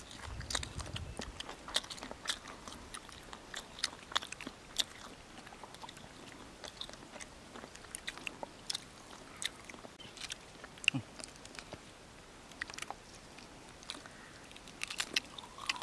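Quiet eating sounds: scattered small bites, chews and mouth clicks as grilled sausage is eaten, close up.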